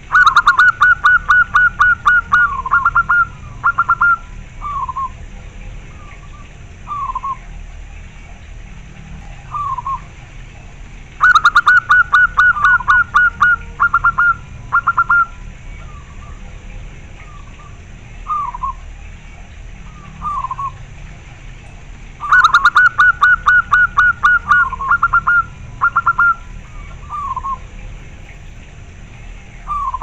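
Zebra dove (local perkutut) cooing: three loud bouts of rapid staccato coos, about eleven seconds apart, each running about three seconds and trailing off into a few separate notes. Single, softer falling coos sound between the bouts.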